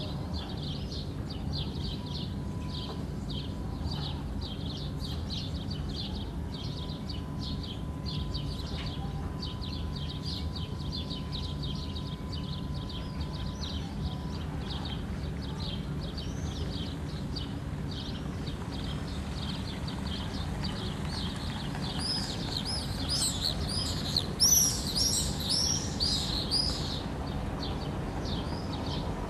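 Small birds chirping rapidly and continuously, with a louder flurry of high chirps from about 22 to 27 seconds in, over a steady low hum.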